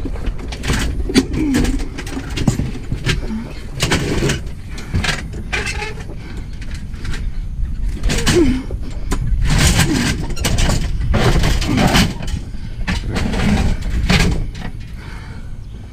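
Repeated knocks, bangs and scraping of scrap items being shoved and shifted into a vehicle's cargo space, busiest in the second half, over a steady low rumble.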